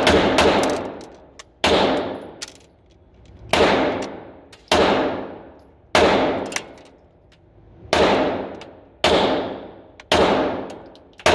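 Glock 9mm pistol fired in slow single shots, eight in all, about one to two seconds apart, each crack trailing off in about a second of ringing echo.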